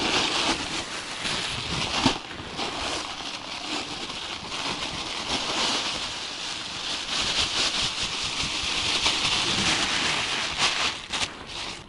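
Thin plastic carrier bags crinkling and rustling as they are handled and shaken out over a bait bucket, a steady crackling rustle with sharper crinkles now and then.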